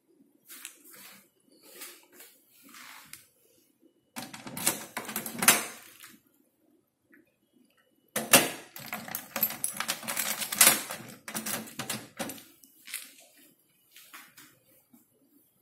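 A bunch of keys jangling and a key rattling in the lock of a small metal shoe locker, the sheet-metal locker clattering. It comes in two bouts of clatter, a short one a few seconds in and a longer one from about halfway, with faint ticks and rustles between.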